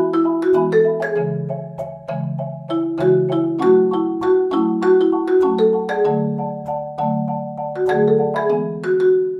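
Background music: a melody of struck notes that ring briefly and fade, several notes a second, over held low notes that change every second or so.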